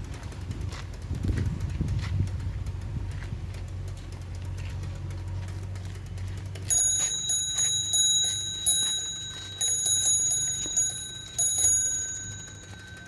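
A small bicycle bell rung repeatedly, with about eight quick rings in the second half, each ringing on briefly. Before that, a low hum with faint clicks.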